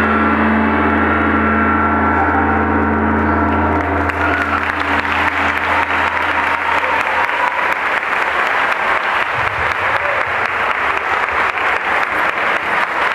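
A final gong-like note from Yamaha Electone Stagea electronic organs rings on and fades over the first few seconds; then an audience applauds.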